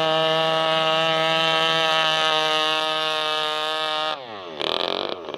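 Brush-cutter engine driving an RC boat, running at high revs with a steady high-pitched whine, then its pitch drops sharply about four seconds in before the sound cuts off.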